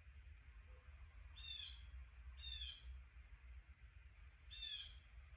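A bird calling faintly: three short calls, a second or two apart, over a low steady hum.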